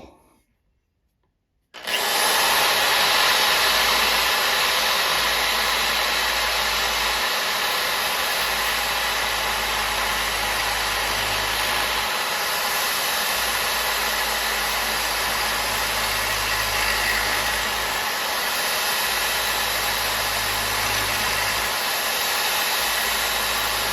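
An electric drill starts about two seconds in and runs steadily, spinning a plastic part against a rough file that grinds the plastic down.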